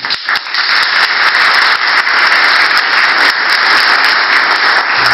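Audience applauding: a few separate claps, then dense, steady clapping from many hands.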